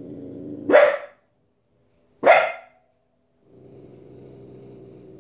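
Young Border Collie puppy growling low, breaking into a sharp bark about a second in and another about a second and a half later, then growling again.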